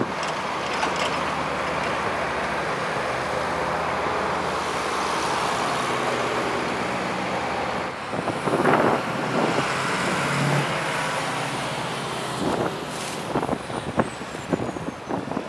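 Snowplow dump trucks driving past, engines running steadily with road and plow noise. About halfway through this gives way to uneven gusts of wind buffeting the microphone.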